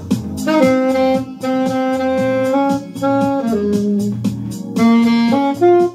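Alto saxophone playing a melody of held notes over a pop backing track with a steady beat; the saxophone line stops just before the end.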